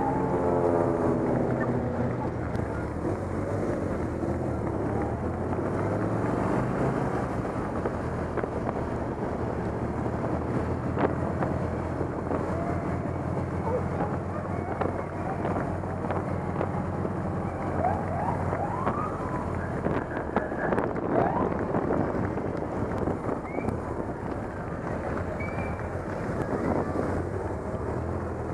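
A group of police motorcycles running at low speed, their engines a steady low drone. A wavering siren wail dies away in the first two seconds, and a few short rising siren chirps come about two-thirds of the way through.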